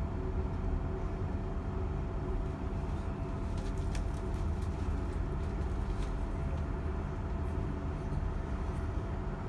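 Steady low rumble of a Belgian NMBS passenger train running at speed, heard from inside the carriage, with a faint steady hum over it and a few light clicks near the middle.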